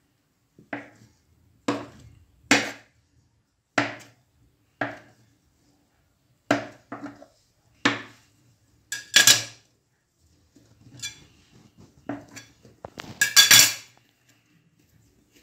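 A knife cutting through soft dough, its blade knocking on a granite countertop about once a second. Two louder, longer metal clatters come near the middle and near the end.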